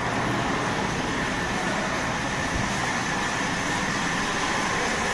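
Steady, even background hum with a faint high whine, no distinct events.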